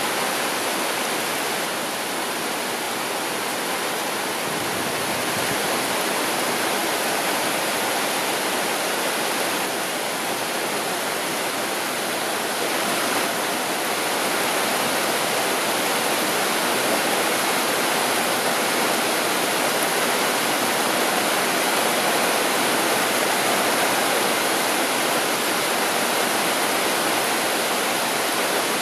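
Intense downpour of rain: a steady hiss, growing a little heavier about halfway through.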